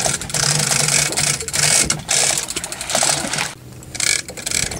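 Big-game fishing reel giving line against its drag as a hooked fish runs: a fast ratcheting whir that comes in surges, dropping back about three and a half seconds in before picking up again.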